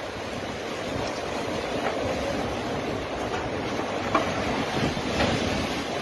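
Strong storm wind blowing hard, with wind rumbling on the phone's microphone. A few faint knocks of things moved by the wind, the sharpest about four seconds in.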